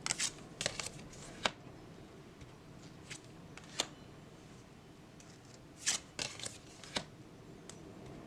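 Tarot cards being handled: scattered light clicks and snaps of card stock, a cluster in the first second and a half, single ones near three and four seconds, and another cluster about six to seven seconds in.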